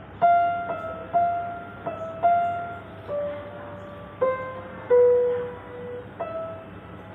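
Acoustic piano playing a slow melody of single notes, each struck and left to ring and fade, about one or two a second.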